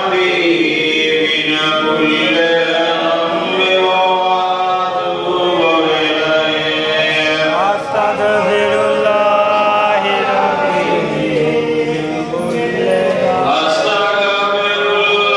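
A man's voice chanting a devotional recitation in long, drawn-out melodic phrases that glide up and down in pitch.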